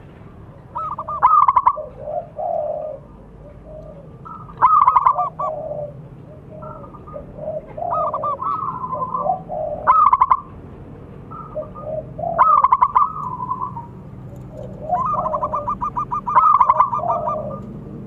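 Zebra dove (perkutut) cooing over and over, each phrase a quick stuttering run of notes followed by lower, drawn-out coos, a phrase every couple of seconds.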